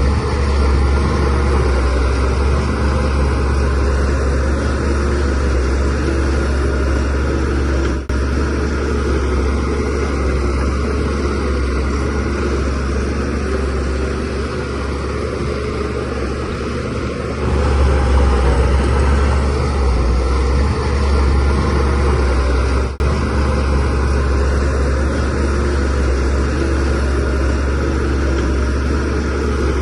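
DH17C3 bulldozer's diesel engine running steadily with a deep drone, getting louder about two-thirds of the way through and dipping for an instant twice.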